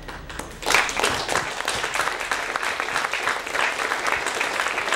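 Audience applause: many people clapping, starting suddenly under a second in and going on steadily.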